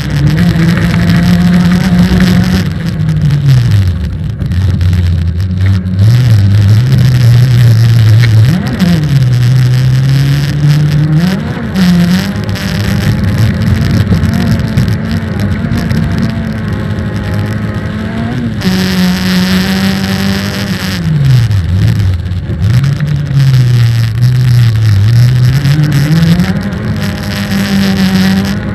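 Autocross car engine at full race effort, revving up and dropping back over and over as it shifts gear and lifts off, the pitch climbing and falling every second or two.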